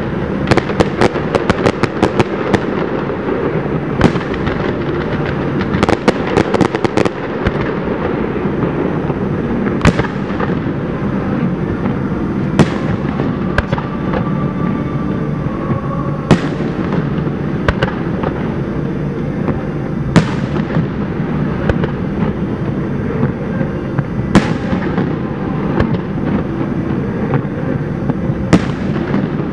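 Aerial firework shells bursting: quick strings of crackling reports in the first few seconds and again around six seconds in, then single loud booms about every four seconds, each trailing off in an echo, over a steady background rumble.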